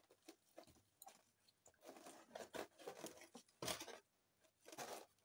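Faint crunching and rustling of gritty potting mix, with bits of expanded clay and charcoal, as it is sprinkled and pressed by hand into a small pot. A couple of louder crunches come in the second half.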